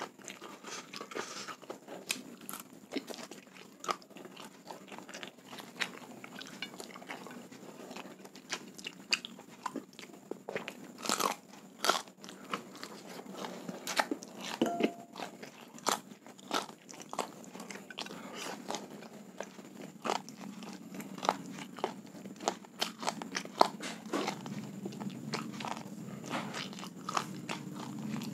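Close-miked chewing and crunching of a mouthful of food, with many irregular sharp wet mouth clicks and smacks.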